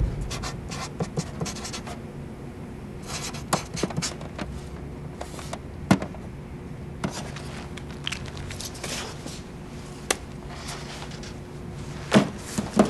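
Felt-tip marker scratching across paper in short strokes, with small taps and clicks, over a faint steady hum. A couple of louder knocks come near the end.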